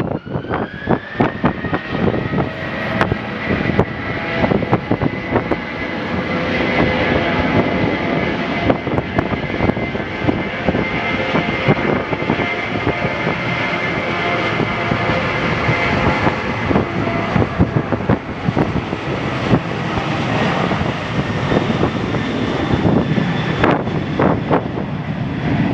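Boeing 737-800's CFM56-7B jet engines spooling up, their whine rising over the first couple of seconds and then held steady at high thrust, as for the takeoff roll. Strong wind buffets the microphone throughout.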